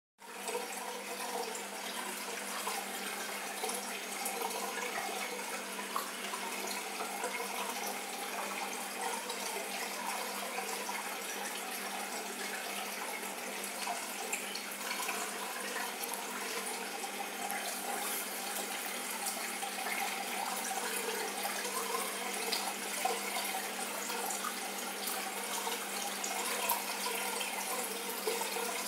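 Aquarium water running and splashing steadily, with a steady low hum underneath.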